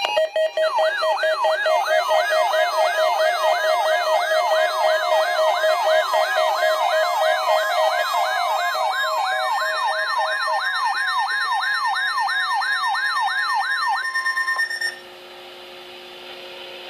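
Weather radio's electronic alert siren: a fast warbling sweep that repeats about two and a half times a second over steady tones, sounding for the required weekly test. It stops about fourteen seconds in, leaving a faint steady tone.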